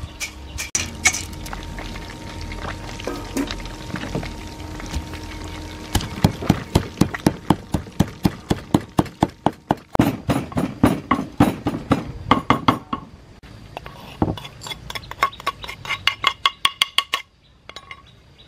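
A few metal clinks, then a wooden pestle pounding in a wooden mortar: quick, even strikes about four a second, crushing nuts, with a short pause partway through.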